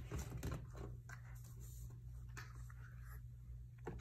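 Scattered light taps and rustles of silicone Pop-It fidget toys being handled and laid down on a pile, over a low steady hum.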